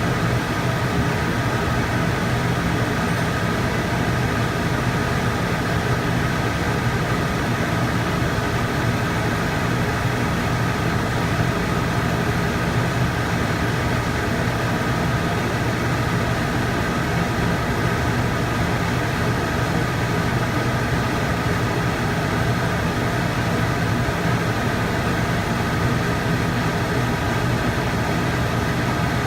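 TIG welding arc burning steadily: a constant buzzing hiss with a steady hum underneath, unbroken throughout.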